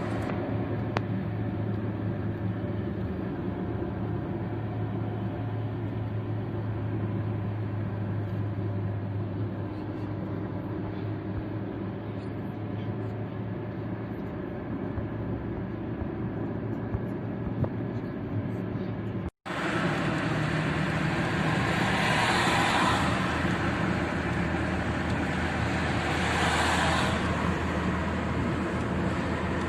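A car driving on a highway in rain: steady road and engine noise with rain on the windshield. The sound drops out for an instant about two-thirds of the way through, then two swells of hiss follow a few seconds apart.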